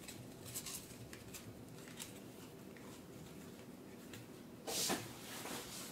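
Playing cards being handled at a table: faint rustling and light ticks as cards are picked up and sorted, with a brief louder swish just before the end.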